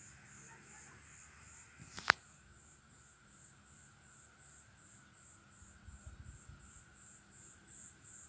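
High-pitched insect chorus: a steady shrill drone that pulses evenly about three times a second. A single sharp click about two seconds in.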